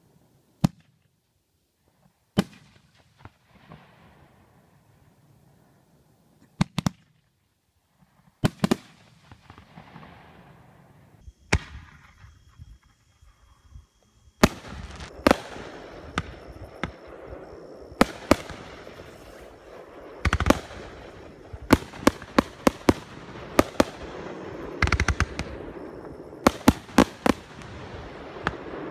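Aerial firework shells bursting with sharp bangs, at first one every couple of seconds. About halfway through they give way to a rapid run of bangs over continuous crackling.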